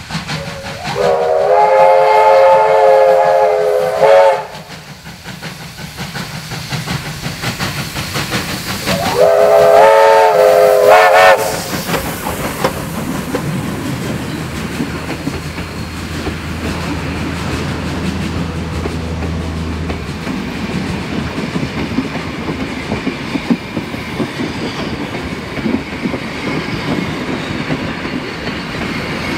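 Steam whistle of Victorian Railways J-class 2-8-0 locomotive J549 sounding two long blasts, the first about three seconds long and the second shorter, starting about nine seconds in. The train's carriages then roll past with a steady rumble and clickety-clack of wheels over the rail joints.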